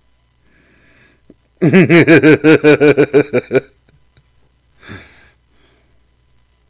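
A man laughing loudly, a quick run of about a dozen "ha" pulses over two seconds, followed by a short breathy exhale near the end.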